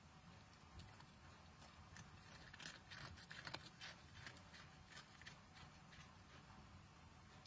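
Red fox chewing and crunching food: faint, quick crisp clicks, thickest a few seconds in, over a low steady hum.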